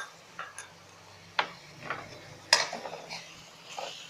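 Spoon scraping and clinking against a cooking pan in short irregular strokes, stirring spices into frying potatoes; the sharpest clink comes about two and a half seconds in.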